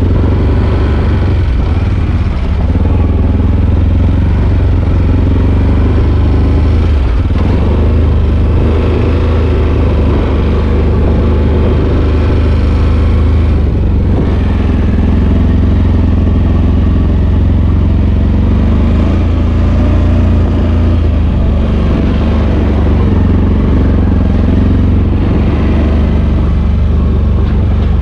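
A four-wheeler ATV's engine running steadily and loudly while riding, without pauses.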